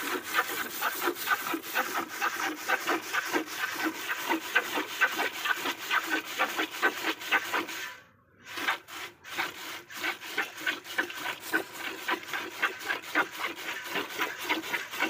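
A cow being milked by hand into a metal pail: rhythmic squirts of milk hissing into the frothy milk, about three or four a second, with a short break about halfway through.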